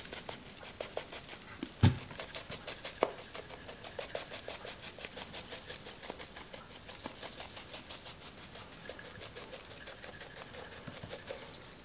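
Spice shaker shaken over a raw whole chicken, a faint, quick, even rattle of dry seasoning. A single thump sounds about two seconds in.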